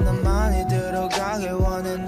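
Background music: a wavering melody over a stepped bass line, with a few soft drum hits.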